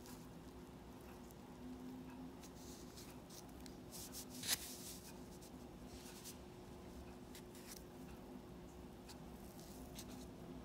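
Pen tip scratching faintly on paper in short strokes, with one louder, brief, sharp scratch about four and a half seconds in. A faint steady hum lies underneath.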